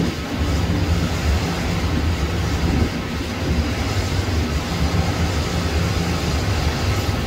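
Jet airliner engines running, a steady, loud low rumble.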